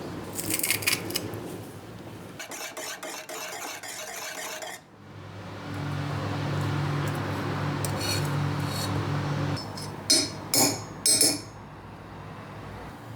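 Kitchen clatter of dishes and utensils. There are sharp clinks, then a couple of seconds of rapid rattling, then a steady low hum for about four seconds. Three loud clanks come near the end.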